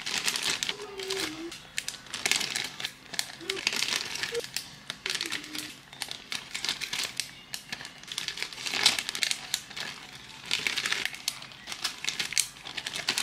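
Plastic packaging crinkling and rustling in irregular bursts as sweets are taken out of a large plastic candy bag and put into small clear plastic zip bags.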